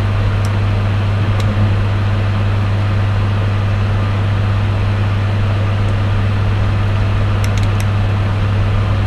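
Loud, steady low electrical hum at about twice the 50 Hz mains frequency, with a few faint light clicks: one about half a second in, one near a second and a half, and a quick cluster near the end.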